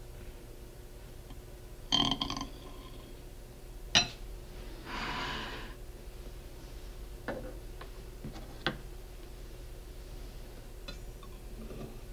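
Metal spatula knocking and scraping against a ceramic cake plate as a cake is lifted on it: a clink with a brief ring about two seconds in, a sharp click near four seconds, a short scrape just after, then a few light taps.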